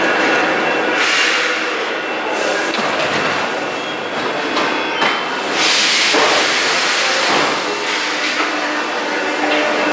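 MF77 Paris Métro train running along the platform on steel rails, a steady loud rolling rumble with two brighter hissing surges, about a second in and just past the middle, and a sharp knock shortly before the second.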